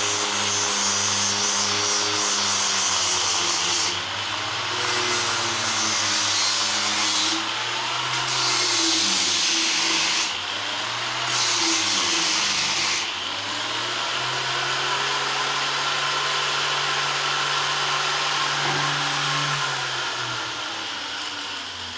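Electric power tool running on wood: a steady motor hum whose pitch sags and recovers as it is pressed into the work, with a high grinding hiss that stops for a moment several times as the tool lifts off.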